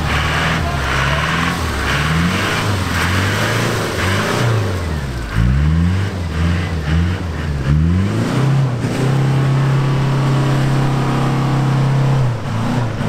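Land Rover Defender's engine revved repeatedly in quick rises and falls, then held at high revs for about three seconds before dropping away near the end.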